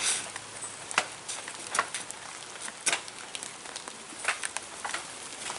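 Scattered sharp slaps and scuffs from wrestlers' feet and bodies on a wet tarp-covered ring mat, the strongest about a second in and again near three seconds, over a steady hiss.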